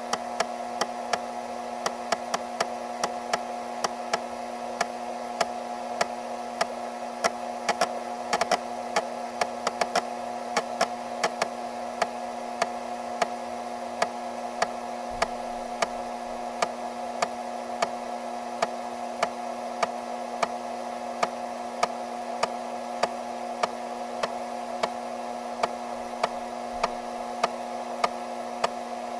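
Floppy disk drive running: a steady motor whir with sharp clicks of the head stepping, about twice a second.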